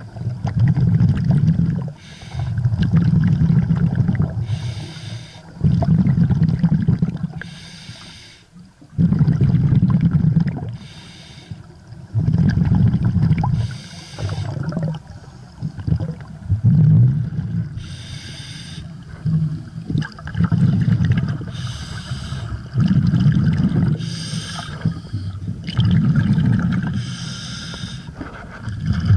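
A scuba diver breathing through a regulator underwater: a short hiss as each breath is drawn, then a longer, loud bubbling burst as it is exhaled. The cycle repeats about once every three seconds, roughly ten breaths in all.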